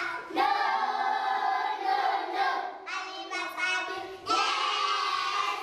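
A group of young schoolchildren singing together in unison, with long held notes that break off briefly just before four seconds in and then come back strongly.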